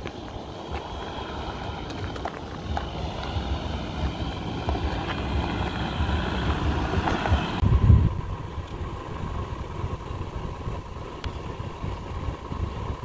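Jeep Wrangler JL with the 3.0 EcoDiesel V6 driving slowly along a gravel dirt track, its engine a low rumble under gusts of wind buffeting the microphone. The sound changes abruptly about two-thirds through, becoming quieter with a thin steady high tone over the vehicle noise.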